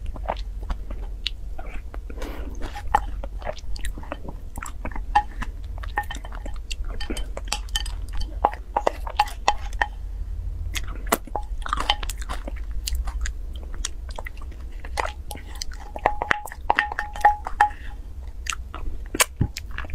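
Close-miked eating: chewing and wet mouth noises with many short clicks, as spoonfuls of a soft, creamy food are taken from a glass bowl with a wooden spoon. A steady low hum runs underneath.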